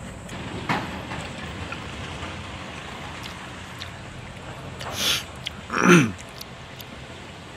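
A person eating with chopsticks from a stainless steel bowl, with soft eating noises over a steady background hiss. There is a short mouth noise about five seconds in and a louder one near six seconds that falls quickly in pitch.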